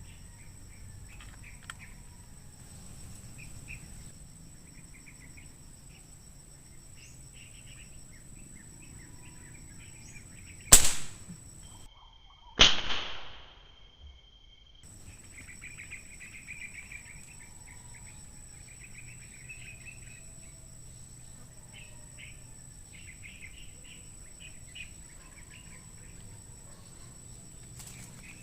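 Air rifle firing: a sharp crack about eleven seconds in and a second crack with a short decaying tail about two seconds later, over small birds chirping and a steady high insect drone.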